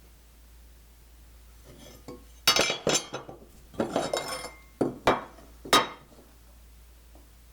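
Hand tools and a piece of wood being handled and set down on a workbench: a run of sharp clinks and knocks starting about two and a half seconds in and lasting about three seconds.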